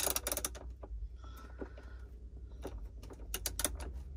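A baitboat's metal propeller nut being tightened by hand on the motor shaft: a quick run of small clicks and taps at the start, a brief faint squeak about a second and a half in, then more clicks near the end, over a low steady hum.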